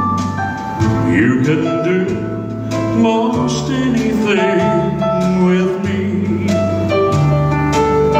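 Man singing a slow country-style ballad live into a handheld microphone over backing music with bass and guitar, holding long notes with vibrato; his voice drops out near the end as the music plays on.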